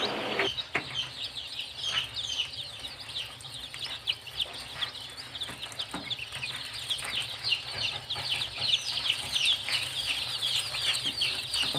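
A crowd of day-old chicks peeping: many short, high, falling cheeps overlapping in a constant chorus.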